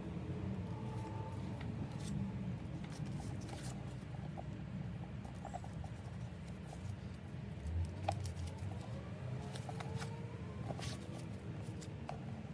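Hands handling a bag and its packaging: scattered small clicks and soft scratchy rustling over a steady low hum.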